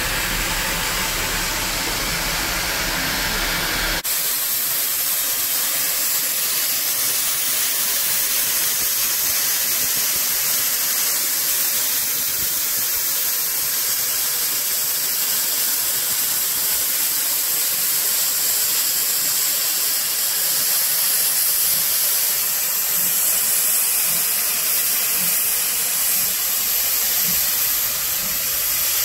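Loud, steady hiss of steam escaping from LNER J27 0-6-0 steam locomotive No. 65894 as it stands with steam blowing off. The sound is fuller and lower for the first few seconds, then becomes a thin, high hiss.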